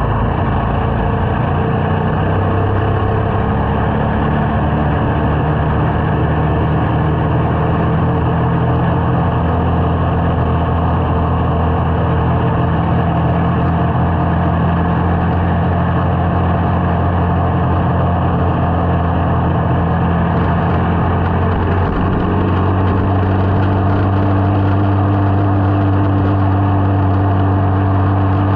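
Small motorcycle engine running steadily while riding. Its pitch shifts a little about three-quarters of the way through, as with a change of throttle or gear.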